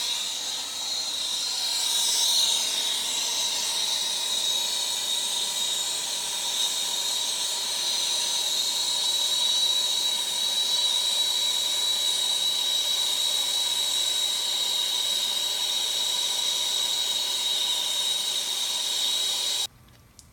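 Brazing torch flame hissing steadily with a thin high whistle as it heats copper pipe to a cherry glow so the silver brazing rod will flow. The hiss cuts off suddenly near the end.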